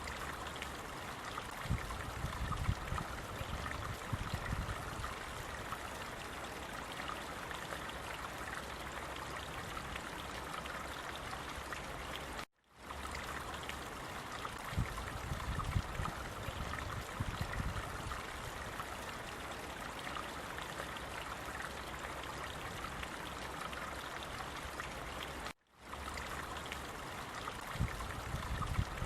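Steady flowing water of a stream, with low rumbling swells that come and go. The sound cuts out abruptly to silence for a moment twice, about thirteen seconds apart.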